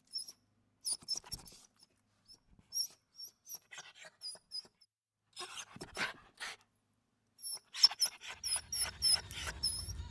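Staffordshire bull terrier whining in many short, high-pitched whimpers in quick succession, with breathy huffs between them: eager whining at a lizard out of its reach.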